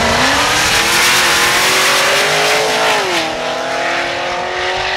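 Two drag cars, one a Cadillac CTS-V, accelerating flat out from the start line. The engine note climbs steadily, drops at a gear change about three seconds in, then pulls up again as the cars run down the strip.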